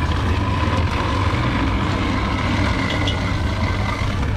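A steady low engine-like drone with a thin, steady whine above it that fades near the end.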